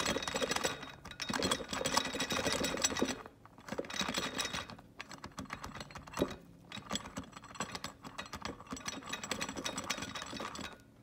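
Forward sprag assembly being twisted back and forth inside a 4L60E forward input drum, rattling and clicking against the overrun clutch plates as it is jiggled to engage both frictions. Bouts of fast clicking, with short pauses about three and a half seconds in and near the end.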